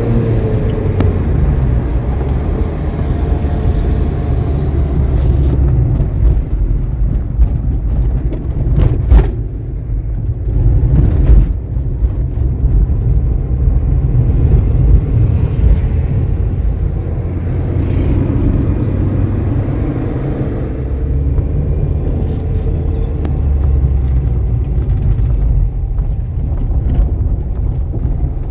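Car driving: a steady low rumble of engine and road, with two short knocks around the middle.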